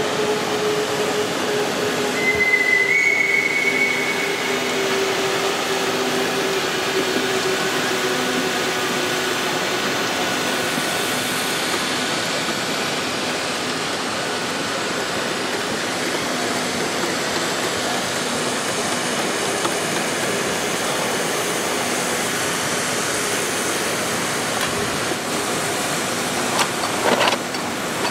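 Large-scale live steam model locomotives running in a big exhibition hall, with a steady hiss and a low, even hall hubbub. A short high tone sounds about two seconds in, and there is a brief sharper sound near the end.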